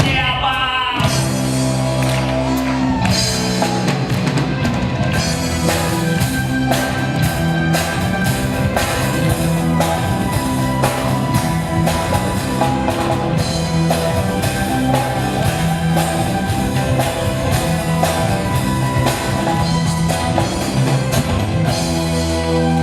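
Live rock band playing, with a drum kit keeping a steady, driving beat under sustained bass and guitar chords.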